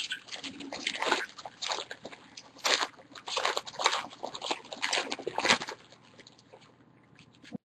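Baseball trading cards and their pack wrappers being handled, in a string of irregular crinkling and rustling strokes that die away about six seconds in.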